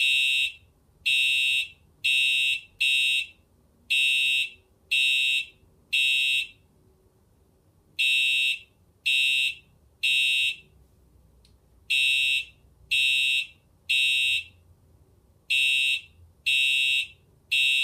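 Simplex TrueAlert fire alarm horn strobes sounding in bursts of three short blasts with a pause between each group, over and over: the code 3 (temporal-three) evacuation pattern.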